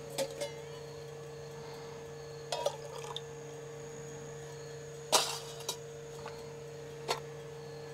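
A few short, light clicks and knocks of small objects being handled, the loudest a little past five seconds in, over a steady faint hum.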